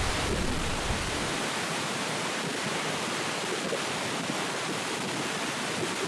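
Langfoss waterfall rushing close by: a steady, even wash of falling water. A low rumble underneath dies away about a second and a half in.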